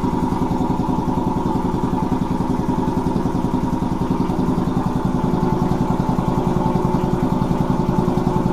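Quincy 310 two-stage piston air compressor running steadily, the pump chugging in an even rapid beat with a steady hum over it. It sounds nice and quiet for a shop compressor, its pump turning slowly at about 750 rpm.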